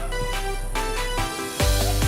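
Background music: an electronic track with held synth notes, a steady beat and a bass line.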